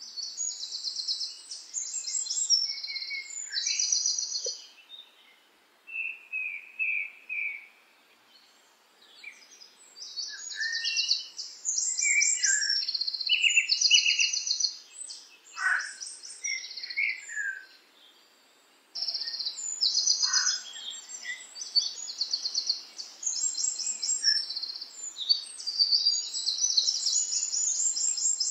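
Songbirds chirping and singing in rapid high trills, several phrases overlapping, with a few short pauses.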